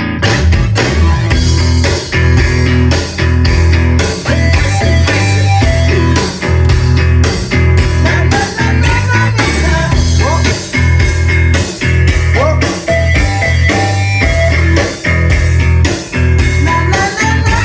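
Rock music with guitar, drums and heavy, regular bass, played through a Dynaudio car sound system.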